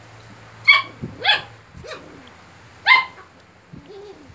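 A young puppy barking at a rooster: three loud, high, sharp barks, with a couple of fainter yips between them.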